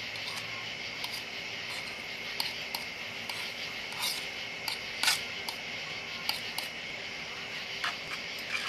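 Faint steady hiss of onions frying in butter in a cast iron skillet, barely sizzling because the pan is not hot enough. Scattered sharp clicks and taps sound over it, the loudest about five seconds in.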